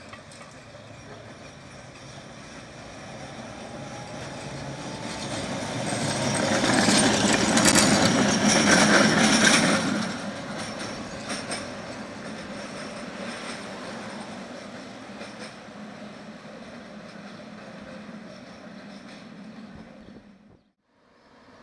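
Tatra tram passing close by on street track, its wheels clicking over the rail joints. A faint rising whine comes as it nears; it is loudest as it goes past a few seconds in, then fades away. The sound drops out for a moment near the end.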